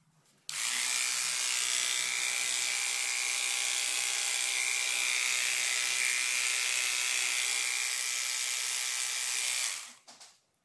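Electric pet hair clippers running steadily, clipping the fur around an infected bite-wound abscess on a puppy. They switch on about half a second in and switch off near the end.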